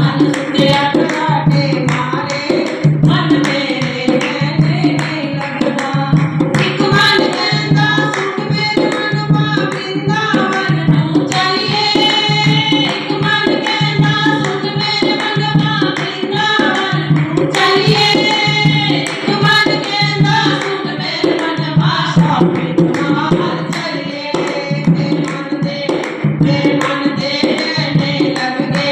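A devotional bhajan sung to a steady hand-drum beat.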